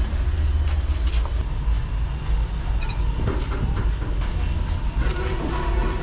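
A steady low rumble, with a few light metallic clinks as the cast-iron exhaust manifold and cylinder head are handled.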